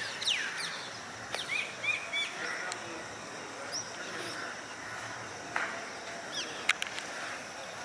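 Birds calling: scattered short chirps and quick falling whistles over a faint steady outdoor background, with a few sharp clicks in the second half.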